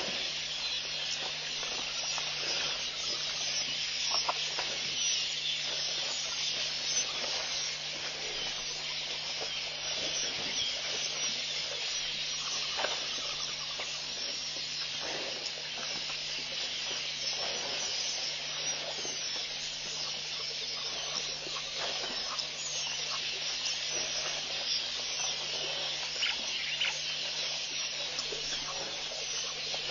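Steady high-pitched buzzing chorus of insects in dry African bush, unbroken throughout, over a low constant electrical hum, with a few faint short knocks and splashes scattered through it.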